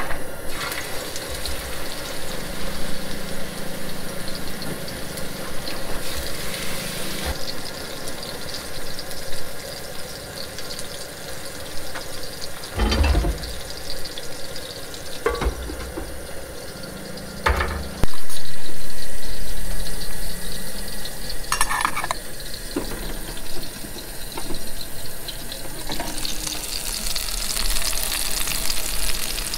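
Filet mignon steaks frying in hot oil in a skillet on a propane camp stove, with a steady sizzle and a few knocks of pan and utensils. About eighteen seconds in, a sudden loud sizzle rises as meat meets the hot oil, then fades over a couple of seconds.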